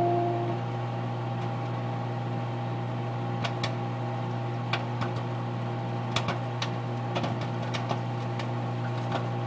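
Microwave oven running with a steady hum while popcorn pops sporadically inside, single sharp pops at uneven intervals. The oven's strange droning tone dies out about half a second in.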